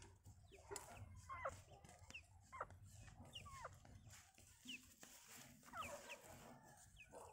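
Faint bird chirps: a dozen or so short, sharply falling calls scattered irregularly over a quiet background.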